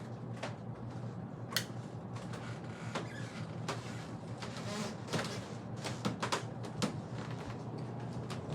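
Harbor Breeze Tilghman 52-inch ceiling fan running on high: a steady low motor hum with scattered clicks and knocks. At high speed it wobbles hard because the downrod is loose near the motor housing.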